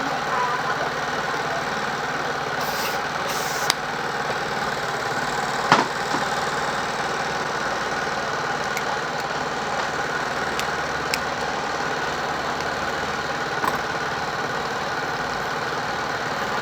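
Steady mechanical hum, with a few sharp taps, the loudest about six seconds in.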